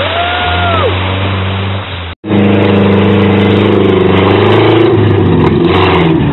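UAZ-469 off-roader's engine running hard at high revs as it works through deep mud, with a steady note. A short whistle that rises and falls is heard near the start. The sound drops out for an instant about two seconds in, and the engine returns louder and closer.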